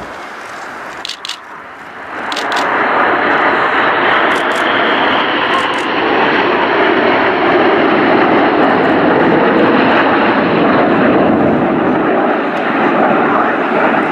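Red Arrows' BAE Hawk T1 jets flying past in formation: jet engine noise that swells about two seconds in and then stays loud and steady.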